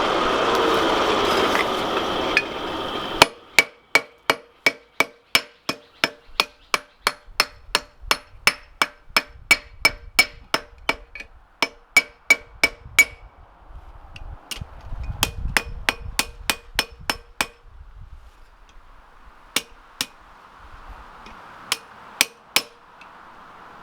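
Hand hammer forging steel on an anvil: a steady run of ringing blows, about three a second, then a pause and a few scattered blows. A loud rushing noise comes first, cutting off about three seconds in.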